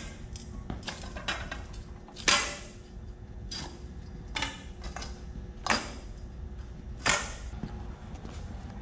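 Soft copper tube rolled back and forth under a work boot on a concrete slab, straightening it: a series of short scraping rolls, about five, the loudest a little over two seconds in.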